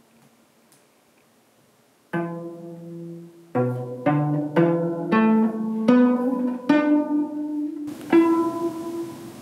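A cello played pizzicato: a slow melody of about eight plucked notes, each starting sharply and ringing on, beginning about two seconds in after a near-quiet start.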